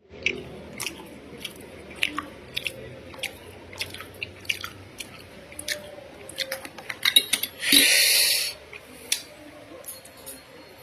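A person eating noodles close to the microphone: chewing with many sharp, wet mouth clicks and smacks. About eight seconds in comes one loud, brief rushing sound.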